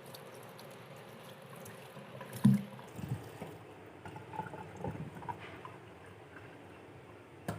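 Water running and trickling while vegetables are rinsed, with light clatter and one louder knock about two and a half seconds in.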